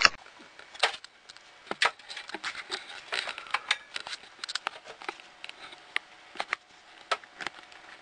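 Irregular clicks, taps and knocks of hands handling cables and plastic parts, with a faint steady hum in the background from about halfway.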